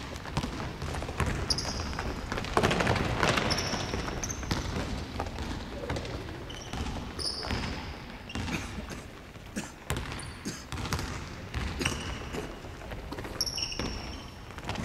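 A basketball bouncing on a hardwood court, with repeated short high squeaks of sneakers on the floor as players run and cut, in a large gymnasium.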